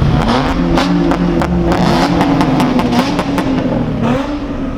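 Car engine revving, its pitch rising and falling several times, with a rapid scatter of sharp pops and ticks over it. It eases off near the end.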